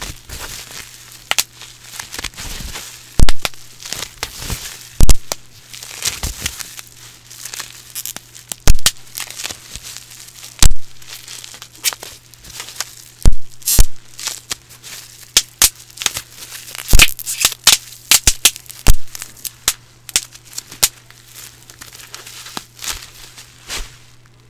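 Bubble wrap being popped by hand right at a microphone: irregular sharp pops, a handful much louder than the rest, over constant crinkling of the plastic sheet.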